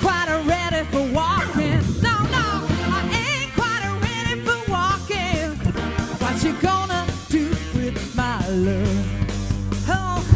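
Rock music with a singer and a steady beat.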